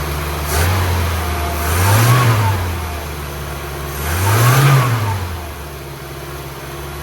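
1978 BMW E21 316's four-cylinder petrol engine running on choke, on its first run in 32 years, and smooth. It steps up from idle about half a second in, then is revved up and back down twice.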